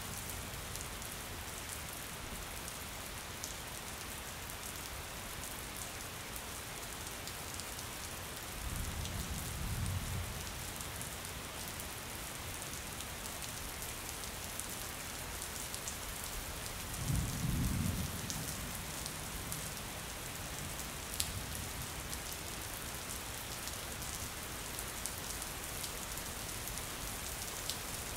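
Steady rain pattering on a window pane, with low rumbles of thunder about nine seconds in and again, stronger, around seventeen seconds.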